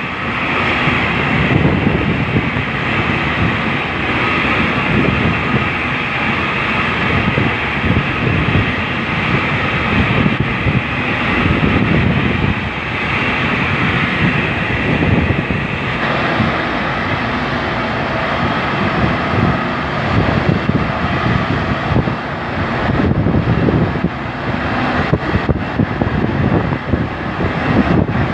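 A boat's engine running steadily, with a rushing wash of wind or water around it.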